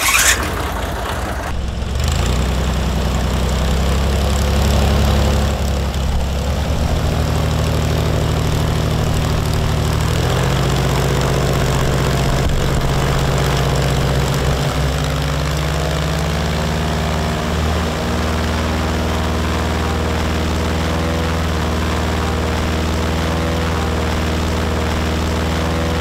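Airboat engine and propeller running at high throttle, a steady loud drone that picks up about two seconds in and then holds, driving wind of close to 100 mph.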